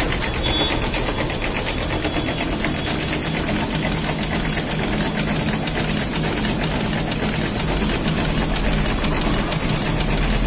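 Warp knitting machine running at speed: a steady, rapid mechanical clatter from its needles and guide bars over a constant low drone.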